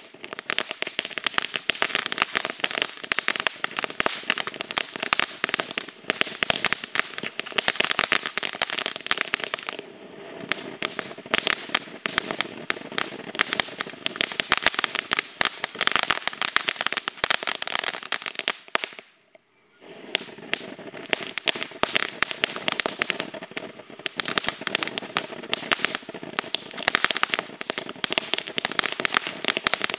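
Pyro Planet Apple Pie Moonshine ground fountain firework crackling: a dense, rapid rattle of crackling stars. The crackle dies almost to nothing for about a second two-thirds of the way through, then picks up again.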